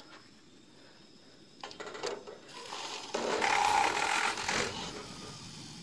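Handheld battery-operated milk frother whirring as it froths milk. It starts after a few light clicks about three seconds in and fades toward the end.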